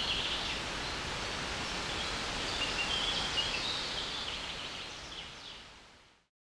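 Outdoor ambience: steady background noise with birds singing faintly now and then, fading out to silence near the end.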